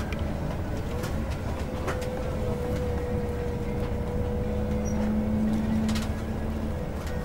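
Bus interior while driving: steady low engine drone and tyre noise, with a held whine through the middle and a few light rattles.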